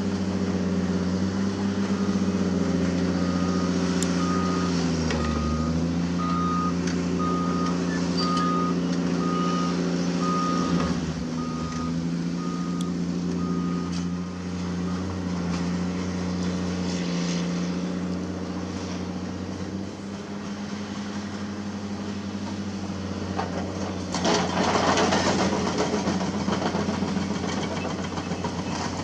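Diesel engines of Caterpillar hydraulic excavators running steadily, their pitch dipping briefly about five seconds in, with a travel alarm beeping about once a second for the first half. About 24 seconds in comes a loud burst of rushing, rattling noise.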